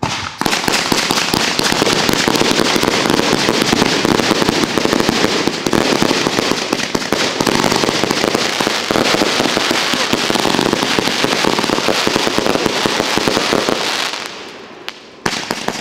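A multi-shot aerial firework going off in a dense, rapid barrage of launches and crackling bursts. It starts suddenly, dies away about fourteen seconds in, and one last sharp bang follows near the end.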